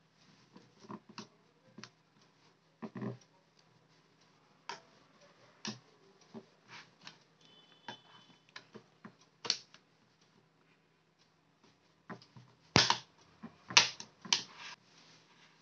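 Plastic clicks and snaps from a plastic opening pick prying apart the case of an Amazon Kindle e-reader along its bezel: scattered light clicks, then a louder cluster of sharp snaps near the end.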